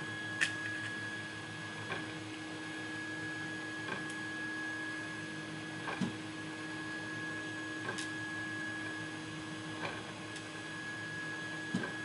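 Light metallic clicks of tweezers picking pins and springs out of a lock cylinder's housing, about one every two seconds, over a steady electrical hum.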